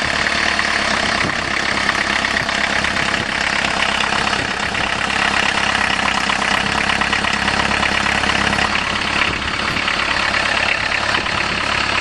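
1.6 litre turbo diesel VW Jetta engine idling steadily just after a cold start, with a rapid even clatter: a cold-sounding diesel.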